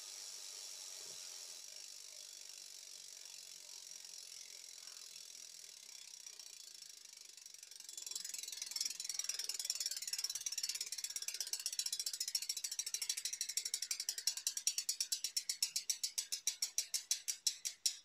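Shimano MT400 rear hub's pawl freehub, heard through a mic clipped to the rear derailleur. First a steady whir of the spinning wheel, then from about eight seconds in a loud pawl clicking as the wheel coasts. The clicking slows until the clicks come one by one near the end.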